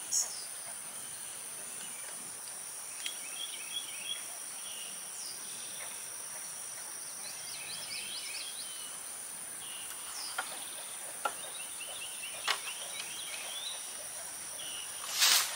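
Steady high-pitched insect drone holding two tones, with short bird chirps now and then and a few light knocks. Near the end comes a brief, louder clatter and rustle as the ladder is handled.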